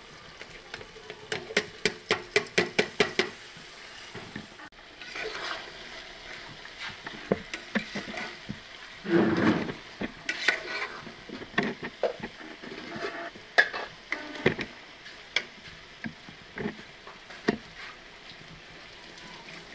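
Metal spatula stirring basmati rice into meat in a metal cooking pot, clinking and scraping against the pot. A quick run of sharp clicks comes near the start, and a louder scraping rush about nine seconds in.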